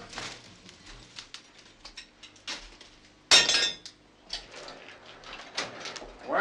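Fire crackling in a blacksmith's forge, with one loud metallic clang about three seconds in that rings briefly.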